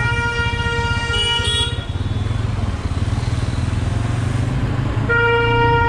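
A vehicle horn sounds twice: a long blast of nearly two seconds, then a shorter one about five seconds in. Under it runs the steady low rumble of a moving motorcycle and road traffic.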